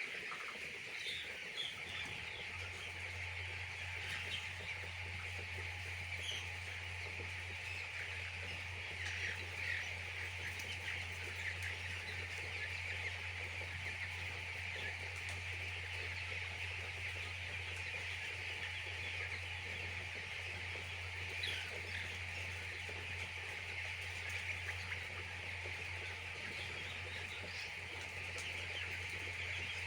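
A large flock of broiler chicks peeping continuously in a dense, high-pitched chatter. A steady low hum comes in about two seconds in and continues beneath it.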